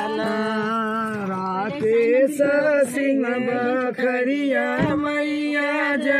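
Chant-like singing with long held notes.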